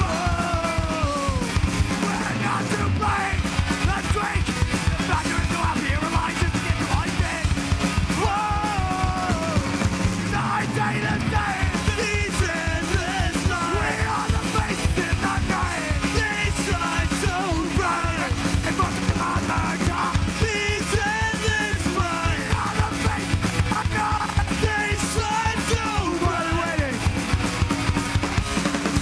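Punk band playing live: fast drumming, distorted electric guitars and bass, with the vocalist yelling into the microphone.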